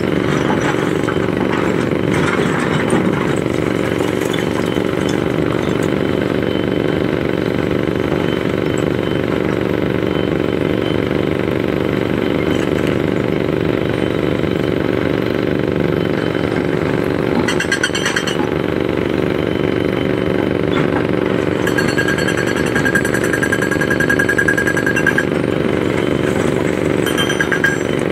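Diesel engine of a working excavator running steadily under load. A high tone sounds briefly about two-thirds of the way through, then again for about three seconds.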